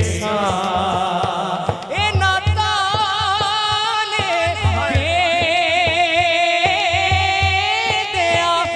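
Punjabi devotional naat: a wavering, melismatic vocal melody without words over a steady low drum beat.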